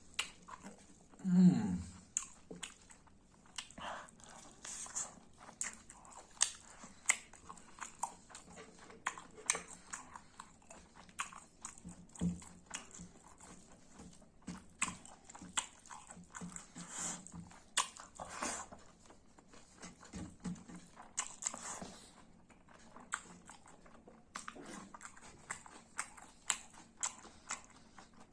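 A person chewing and biting food close to the microphone: a steady run of wet mouth clicks and smacks. About a second and a half in there is one louder, short low sound that falls in pitch.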